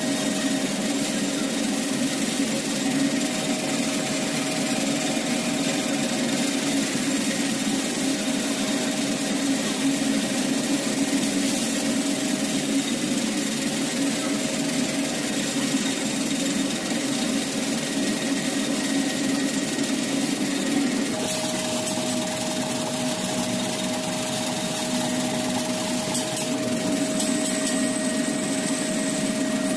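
Metal lathe running while boring the bore of a bronze centrifugal pump part: a steady machine hum with a thin steady tone over it, shifting slightly about two-thirds of the way through.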